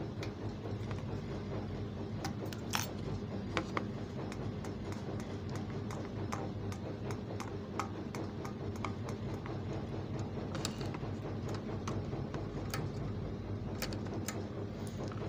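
Scattered small metallic clicks and taps as overlock machine parts are handled and fitted back into the opened machine, over a steady low hum.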